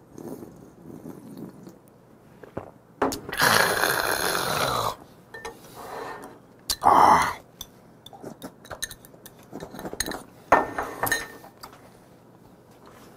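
Soju being slurped from a crab's top shell: a long, loud slurp about three seconds in, then a short loud gasp near seven seconds and smaller mouth and eating noises with light clinks later.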